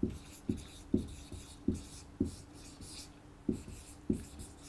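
Felt-tip marker writing on a whiteboard: short pen strokes landing about twice a second, each with a light tap, and a scratchy hiss of the tip dragging across the board between them.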